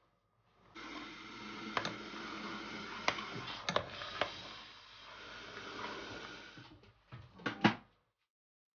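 A ladle stirring soup in a stainless steel pot: steady sloshing of the liquid with scattered clinks of the ladle against the pot, then a few sharper knocks about seven seconds in.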